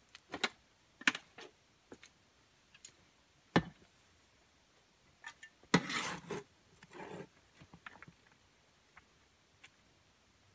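Shovel working a wheelbarrow load of soil: scattered sharp knocks and clicks, one louder knock a few seconds in, then a scraping scoop of about half a second and a shorter one soon after.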